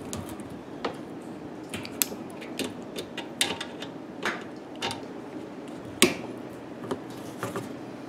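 Scattered clicks, knocks and scrapes of locking pliers and a metal washing-machine suspension rod working against the plastic bushing cap in the cabinet corner, the sharpest knock about six seconds in.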